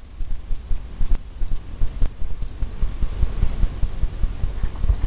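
Paint being tapped onto a stretched canvas: a run of low thuds, several a second.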